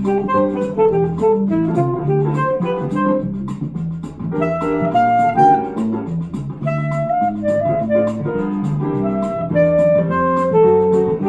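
Alto saxophone playing a quick melody of short, separately attacked notes over a bass and chord accompaniment.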